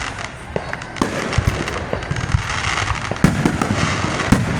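Aerial fireworks going off in a rapid series of bangs and crackles, the sharpest bang a little past three seconds in.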